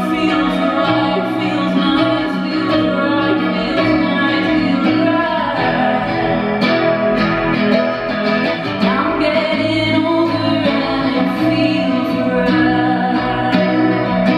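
Live rock band playing: electric guitars through chorus and effects pedals over bass and drums, with a singing voice.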